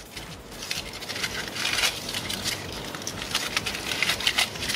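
Aluminum foil crinkling and crackling as it is unwrapped and pulled off the ignition-coil connectors by hand, in many quick, irregular crackles.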